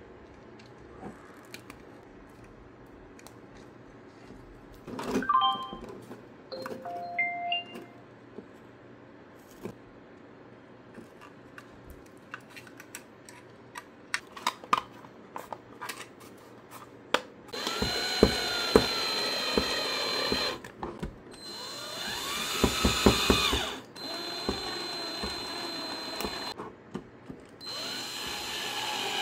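Small electric screwdriver driving screws into a 3D-printed plastic speaker case. It runs in four bursts of a few seconds each, starting a little past halfway, and its whine rises and falls with the load. Earlier there are light clicks of handling and a few short electronic beeps.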